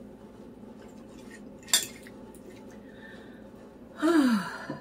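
A fork clicking once against a ceramic bowl while eating, then near the end a short vocal sound that falls in pitch, like a sigh.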